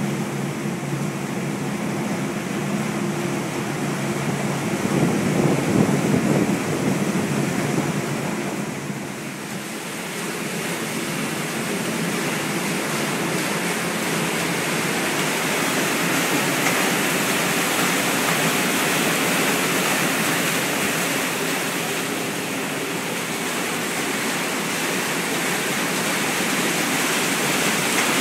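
Steady rushing and splashing of river water churned at the American Queen's stern paddle wheel, with a low machinery hum under it for the first several seconds.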